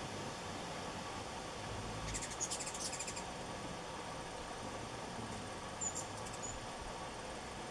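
Ruby-throated hummingbird chattering: a rapid run of high, dry ticks about two seconds in lasting about a second, then a few short high chips about six seconds in.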